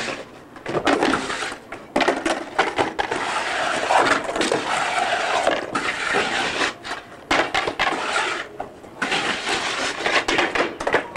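Skateboard on a concrete ledge over several attempts: the board clacking as it is popped up, the trucks scraping and grinding along the concrete, and the wheels slapping down and rolling, with sharp knocks scattered through and brief quieter gaps between takes.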